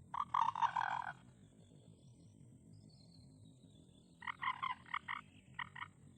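Common moorhen giving harsh pulsed croaking calls: a short run of rapid croaks at the start, and a second run of croaks about four seconds in.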